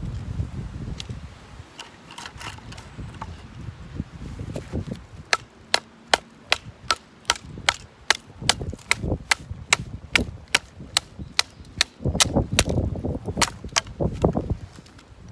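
Batoning firewood: a knife driven through a log with a wooden baton, sharp even blows at about three a second, starting about five seconds in and running for some eight seconds. Wind rumbles on the microphone underneath.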